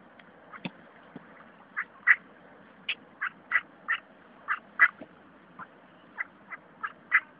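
Ducks quacking: a string of about a dozen short quacks, irregularly spaced and coming thicker after the first couple of seconds.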